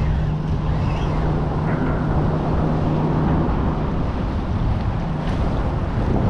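Wind rumbling on the microphone, with a steady low engine hum that fades out about three and a half seconds in.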